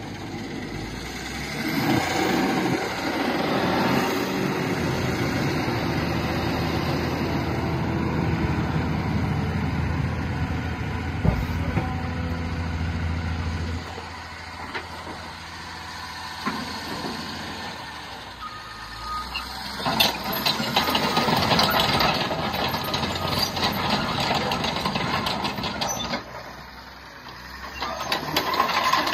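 Caterpillar D6N crawler dozer's diesel engine idling steadily, its level rising and falling over the stretch, with scattered light clicks in the second half.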